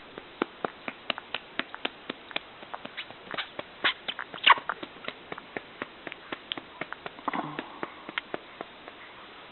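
Quick, soft pats on a baby's back while she is being burped, about four a second, with one louder pat about halfway through.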